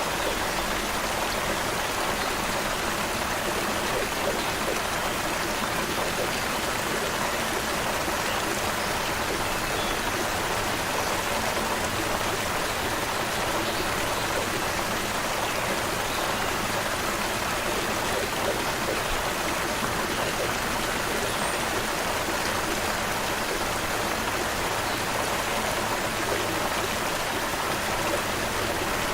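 Creek water babbling and splashing steadily over stones, an even rushing with no pauses.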